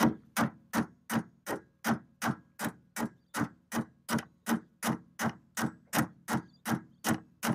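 A hammer taps steadily on multi-grips clamped to a boat steering cable's shaft, driving the stiff shaft into the outboard's tilt tube. There are about twenty even blows, roughly three a second.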